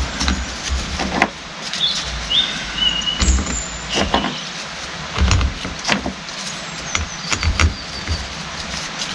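Metal parts of a hydraulic pump being handled on a workbench: scattered sharp clicks and knocks with a few dull thuds and brief high squeaks.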